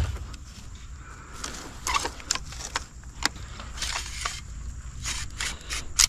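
Landing net's telescoping handle being pulled out and handled, with a string of clicks, short scrapes and knocks; a sharp knock near the end is the loudest.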